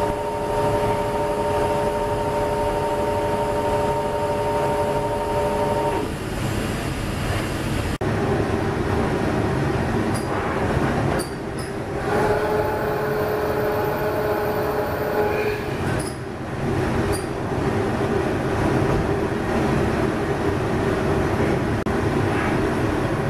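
Spindle of a Deckel Maho DMU 80 P hiDyn machining centre running at speed, a steady multi-tone whine that drops out about six seconds in and comes back for a few seconds midway. Under it runs a constant rushing hiss of coolant spraying inside the enclosure, with a few sharp clicks.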